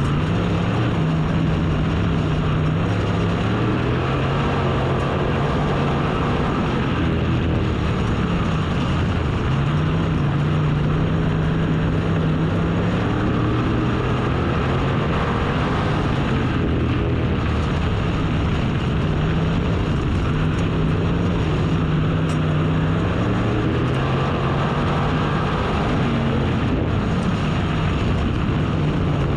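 Dirt-track race car engine running hard under racing conditions. Its pitch rises and falls in a repeating cycle every several seconds, as the revs climb and drop around the oval.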